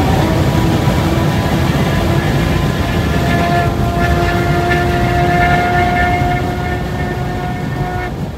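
Tesla Model S Plaid's tri-motor electric drive whining at triple-digit speed over heavy wind and road noise inside the cabin. Several steady whine tones hold as the car runs at well over 100 mph, then the noise eases off and the whine cuts out near the end as the car slows.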